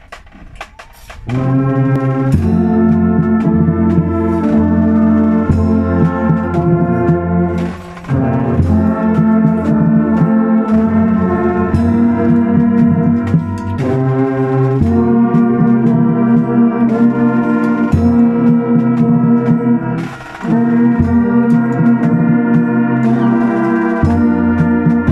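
Brass band of trombones and other brass horns playing, starting about a second in, with held low notes under the tune and short breaks between phrases twice.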